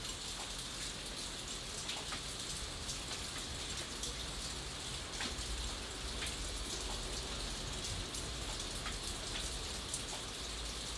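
Steady rain with many individual drops ticking on a surface, over a constant hiss and a faint low rumble.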